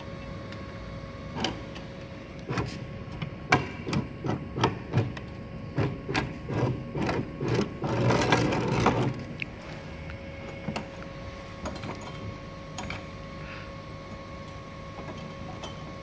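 Metal clicking and clanking as the wire-guide roller assembly of a chain link fence making machine is worked on by hand, a quick run of clicks in the middle, over a steady hum.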